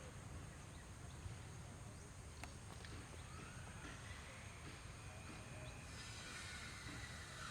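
Faint outdoor ambience: a steady low rumble with a few soft clicks, and faint rising animal calls from about the middle on.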